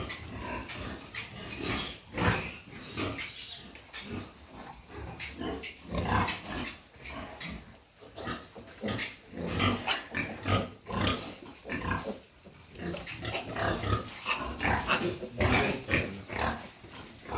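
A farrowing sow and her newborn piglets grunting and squealing in many short, irregular calls.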